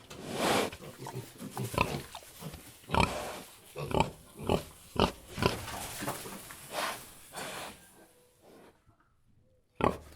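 Domestic pig grunting in a quick series of short calls, about two a second, that stops after about eight seconds, with one more short grunt near the end.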